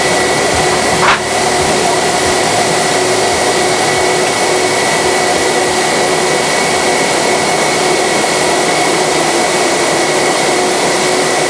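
Steady jet-engine noise of an Embraer KC-390's twin IAE V2500 turbofans heard inside the aircraft: a loud, even rush with a steady high whine and a lower hum, and a brief click about a second in.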